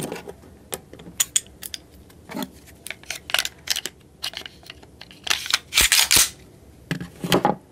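Small metal and polymer clicks and clacks of a Glock 19 pistol being reassembled by hand: the recoil spring assembly seated in the slide, then the slide fitted back onto the frame, with a few louder clacks a little past halfway and again near the end.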